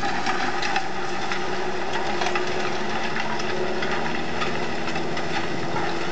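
Tractor engine running steadily under load while pulling a 25-disc harrow with 28-inch discs through dry, cloddy soil, over a constant rattle and clatter from the discs working the ground.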